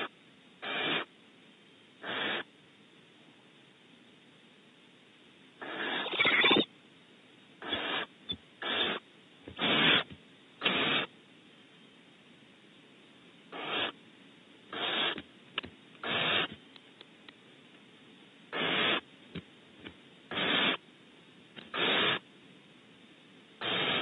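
Barn owls in their nest cavity giving repeated harsh, hissing calls, each under a second long, coming irregularly every second or two, with a pause of a few seconds after the first two.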